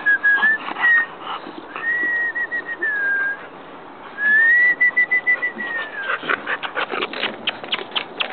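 Bulldog puppy whining in long, high, wavering whines that rise and then sag in pitch, several in a row. Near the end comes a quick run of sharp clicks.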